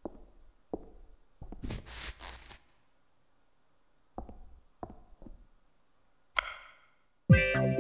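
Sparse sound effects: a few soft knocks, a swish about two seconds in, a few footsteps around four to five seconds in, then a sharp click as a music player is set into a dock speaker. Music with a steady beat starts just before the end.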